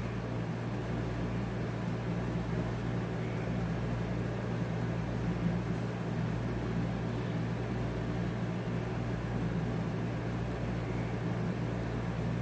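Room air conditioner running with a steady, noisy low hum.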